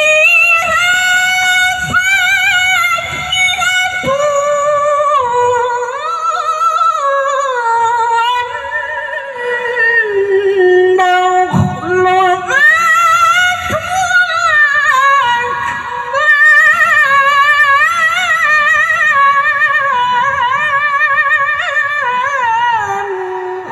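A young woman reciting the Qur'an in melodic tilawah style, amplified through a microphone: long held phrases that waver and turn through ornaments, with a short break for breath about halfway and a last phrase that falls and fades near the end.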